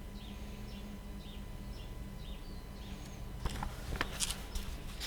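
Faint small-bird chirps repeating about twice a second over a low steady hum, giving way about three seconds in to a few clicks and rustles.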